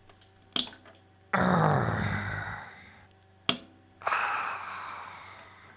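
Two sudden bursts of hissing air from a nozzle blowing chips out of a drilled hole in steel, each fading out over about a second and a half, with a sharp click just before each. A low machine hum runs underneath.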